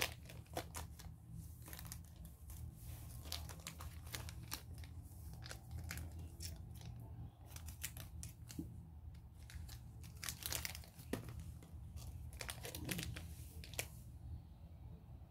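Small toy packaging being handled and opened: plastic bags and paper wrapping crinkling and tearing in a run of quick, faint crackles.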